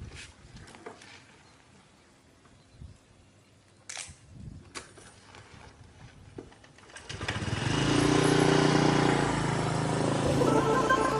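A few light clicks and knocks, then a small automatic motor scooter's engine comes up about seven seconds in and runs steadily as the scooter pulls away.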